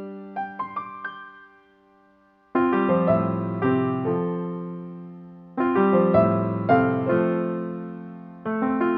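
Background music: gentle easy-listening piano chords, each struck and left to fade, with a short pause about two seconds in.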